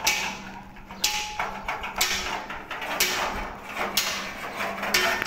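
Hammer blows on metal, about one strike a second, each with a short ringing tail. A steady low hum runs underneath.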